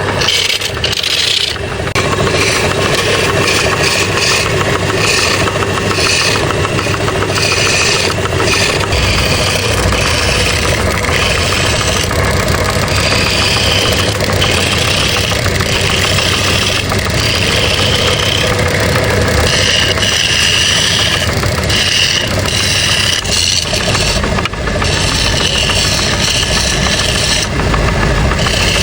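A power tool's motor running continuously, with a higher whine coming and going every second or so as the tool works bamboo.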